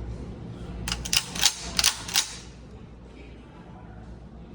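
A quick run of sharp metallic clicks and clacks, about seven in just over a second starting about a second in, from a 12-gauge shotgun's action being handled and worked.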